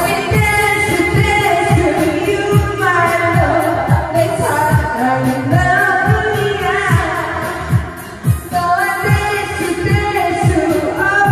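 A woman singing a pop song into a karaoke microphone over the karaoke machine's backing track, with a steady drum beat.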